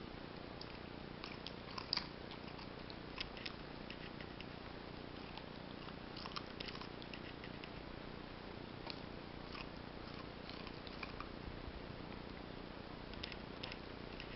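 Puppy chewing a raw carrot: irregular crisp crunches in small clusters, the loudest about two seconds in, over a steady low hiss.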